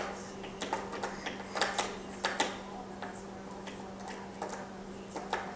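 Irregular clicks and clatters of small hard objects knocking together, a few sharper knocks about a second and a half to two and a half seconds in, over a steady low hum.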